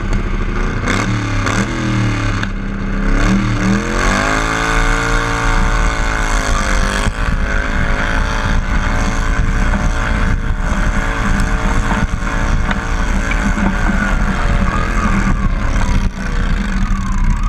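Modified garden tractor engine at full throttle, pulling a weight-transfer sled down the track. The revs climb over the first few seconds, then hold high and steady under load, easing slightly near the end.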